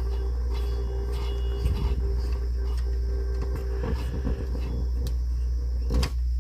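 A steady low electrical hum with a constant mid-pitched tone over it, broken by a few brief knocks and rattles of handling: about two seconds in, around four seconds in and near the end.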